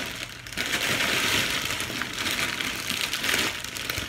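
Plastic shopping bag and a plastic packet of frozen mixed vegetables crinkling and rustling as they are rummaged through and pulled out. The crinkling starts about half a second in and keeps up steadily.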